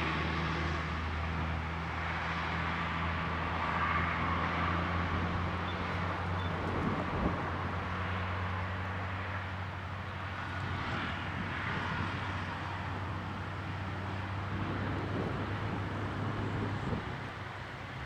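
A steady low engine drone under faint outdoor background noise, fading about fifteen seconds in.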